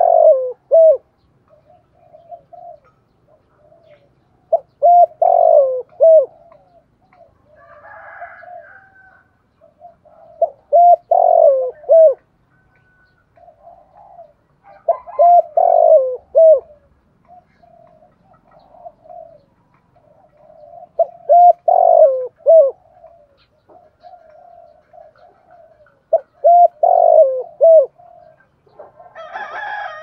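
Spotted dove singing its cooing song, repeating the phrase about every five seconds: a run of low coos ending in two or three loud, clipped notes, with softer coos in between. Near the end a rooster crows.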